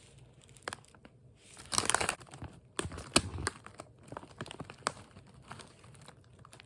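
A sealed potato chip bag crinkling as it is handled and turned over, in irregular rustles and crackles, with the busiest handling about two to three and a half seconds in.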